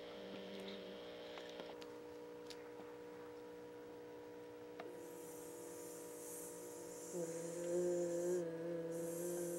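Steady low electrical hum on an old camcorder recording, made of several fixed tones. About seven seconds in, a louder, slightly wavering hum joins it.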